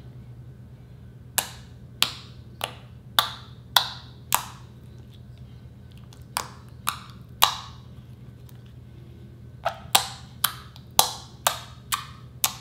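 Fingertips poking into and pulling out of glossy white slime on a countertop, each one making a sharp wet pop as air trapped in the hole bursts. About sixteen pops come in three runs, roughly two a second.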